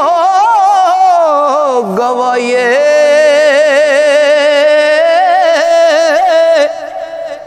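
A man singing Punjabi Sufi kalam, drawing out one long ornamented note whose pitch wavers. The pitch dips about two seconds in, then holds until it breaks off shortly before the end.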